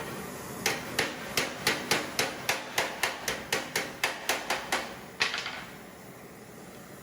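Blacksmith's hammer striking metal on an anvil in a quick, even series of about sixteen blows, roughly four a second, then one last blow about five seconds in.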